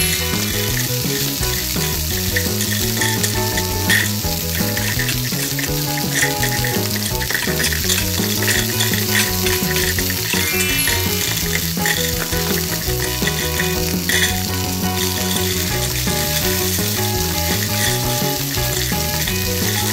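Steady frying sizzle, an added sound effect for stir-frying in a wooden toy pan, with background music underneath.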